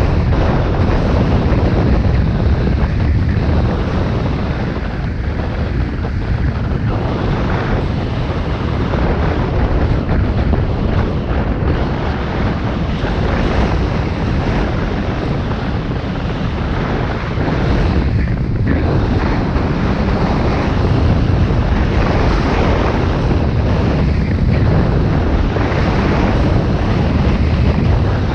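Steady rush of wind over the microphone of a camera carried by a skier going down a groomed piste, mixed with the hiss of skis sliding on the snow.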